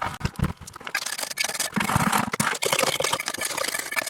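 Steel trowel scraping and knocking against wet concrete and the step as concrete is worked into a crack, a quick string of scrapes and short knocks.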